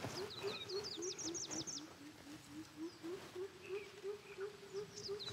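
Birdsong: a quick run of high, falling chirps in the first two seconds, starting again at the very end, over a low call that pulses steadily about four times a second.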